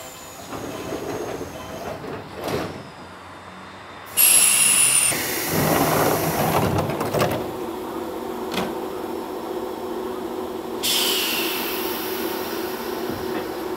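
Nankai electric commuter train standing at the platform, with a sudden loud blast of air about four seconds in and a clattering rumble after it. Another hiss of air comes near eleven seconds as the sliding doors close, over a steady hum from the train's equipment.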